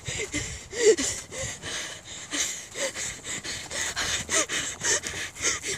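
A person breathing hard and panting close to the microphone, out of breath after running, with short gasping breaths about twice a second.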